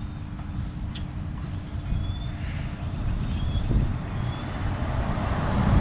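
Wind buffeting the microphone outdoors, a rumble that grows louder toward the end, with a few short bird chirps.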